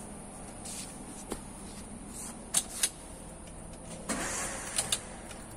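Ignition key turned in a car's ignition switch: a soft click, then two sharp clicks, and later a short rustle followed by two more clicks.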